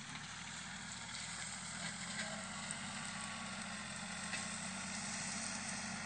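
A small farm tractor's engine running steadily as it clears old sugar cane stubble, heard as an even, low hum.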